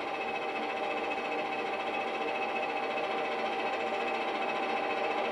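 Steady hiss with one constant faint tone running through it: background noise of the playback, with no other event standing out.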